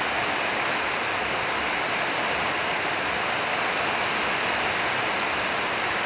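Steady, even hiss of background noise that does not change, with no distinct eating sounds standing out.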